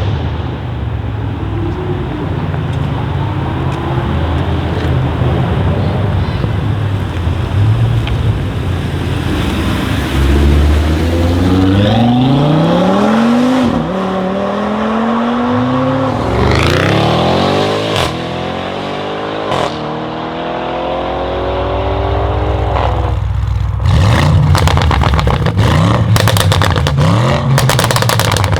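Tuned Audi RS6 C8 Avant's twin-turbo 4.0 V8 through a Capristo exhaust, idling at first. From about ten seconds in it is revved several times, each rev rising and falling. Near the end it idles on a rapid string of exhaust pops and crackles, with a few more blips.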